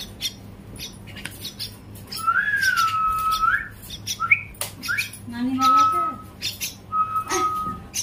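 Common myna chicks calling while being hand-fed: clear whistles, one rising then held level a couple of seconds in and two more held whistles later, short upward chirps, and scratchy squawks.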